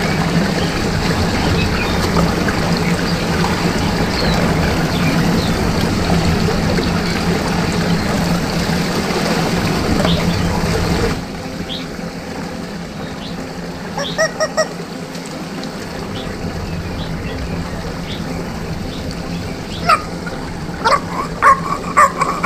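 Water rushing as it swirls down a whirlpool drain, getting quieter about halfway through. Over it, a squeezed rubber chicken toy gives a few short squawks, then a quick run of honking squawks near the end.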